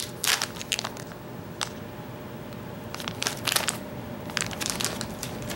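Clear plastic soft-bait package crinkling as it is handled, in short crackling clusters: one soon after the start, another about three seconds in, and more near the end.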